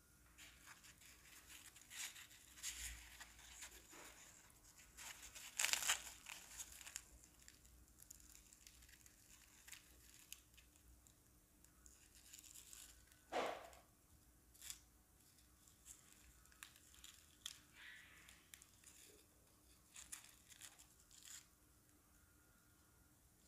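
Crisp, thin fried spring-roll pastry crackling and tearing as it is broken open by hand: faint, scattered crackles, with a louder crunch about six seconds in and another about thirteen seconds in.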